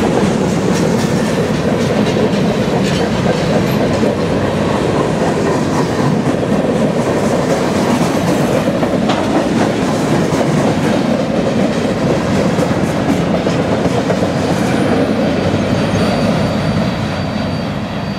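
Freight cars of a passing train, mostly centerbeam flatcars and boxcars, rolling by close at hand: a steady rumble of steel wheels with clickety-clack over the rail joints. It eases off slightly near the end as the last cars draw away.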